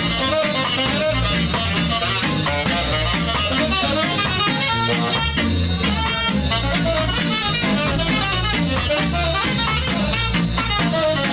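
Ska band playing live: saxophone and trumpet over guitar and drum kit, with a steady beat.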